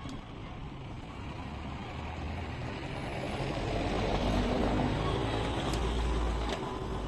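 A motor vehicle passing close by, its low engine and tyre rumble growing louder to a peak about four to six seconds in, then dropping away.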